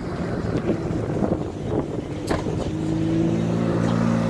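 McLaren 570S's twin-turbo V8 through a custom exhaust, running at low speed as the car rolls close by. It comes in as a steady low drone about two-thirds of the way through and grows slightly louder.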